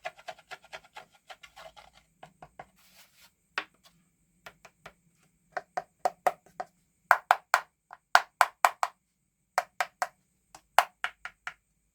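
A series of short, sharp knocks or clicks with a pitched, wood-block-like ring, in an irregular rhythm: quick and light at first, then louder clusters from about halfway, separated by silent gaps.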